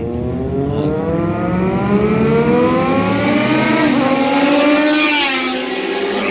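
Superbike engines accelerating up a race circuit's main straight, their pitch rising steadily as the pack approaches. About five seconds in, one bike passes close with a falling pitch and a rush of air.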